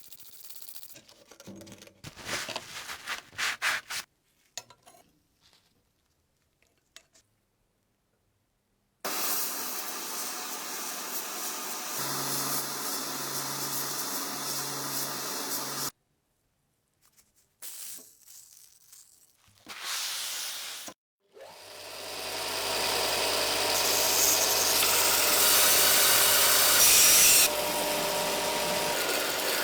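Workshop restoration sounds in separate cuts: short rubbing or scraping strokes at first, then a power tool running steadily for several seconds with a pulsing hum. After a few seconds of silence, a power tool starts up and runs steadily to the end.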